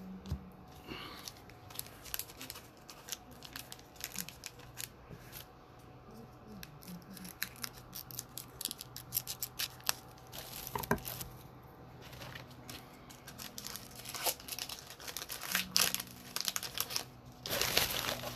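Plastic trading-card pack wrappers crinkling and tearing as card packs are torn open by hand. The crackling comes in clusters, heaviest about ten seconds in and again near the end.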